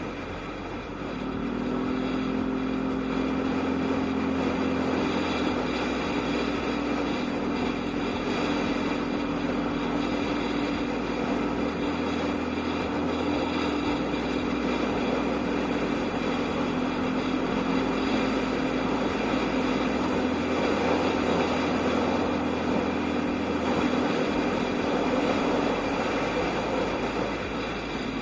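Yamaha Aerox scooter being ridden, its engine holding a steady note under road and wind noise. The engine note picks up and settles about a second and a half in, then stays even.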